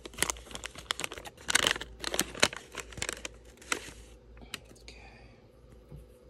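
Thin paper wrapper crinkling and rustling as it is unfolded and handled, dense for about four seconds, then only a few scattered crackles.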